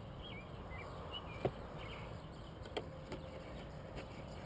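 A few short, sharp knocks and clicks of plastic pipe fittings being handled and pushed together, the loudest about a second and a half in. Small birds chirp during the first second over a steady low background noise.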